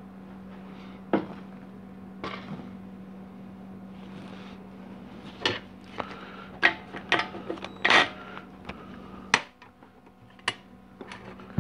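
Scattered clicks and light metallic clatter of hand tools and transmission parts being handled on a workbench, over a steady low hum that stops near the end.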